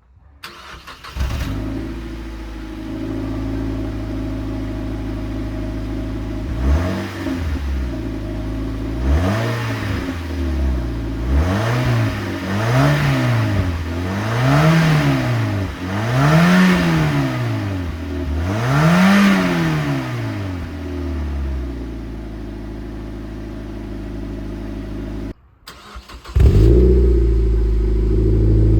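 Mazda MX-5 NC 2.0 inline-four cold-started through the stock exhaust, catching about a second in and idling. It is then revved in about seven quick blips before settling back to idle. After a short break near the end it is cold-started again with an I.L Motorsport rear silencer, a louder start and idle.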